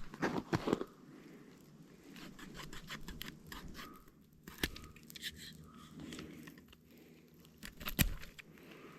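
Small multitool knife blade sawing back and forth through a rope: uneven scraping and fibre-tearing strokes with scattered sharp clicks. The blade is not very sharp out of the box and needs lots of pressure to cut.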